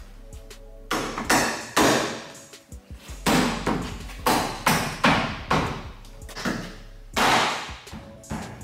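A run of sharp, irregular knocks and rasps as plastic wheel-well trim and wiring are handled and fastened by hand, over steady background music.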